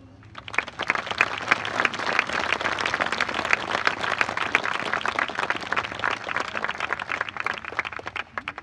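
Crowd applauding, with many hands clapping and some sharp claps close by. It starts about half a second in and dies away near the end.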